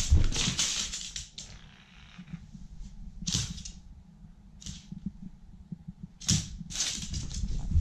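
Small black dog playing with a plush toy on a wooden floor: about five short, breathy bursts of sound, with light clicks and scuffles of its paws.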